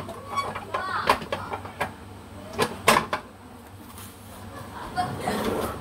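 Kitchen handling noises: a few sharp knocks and clicks of containers and utensils being put down and moved on the counter, mostly in the first three seconds.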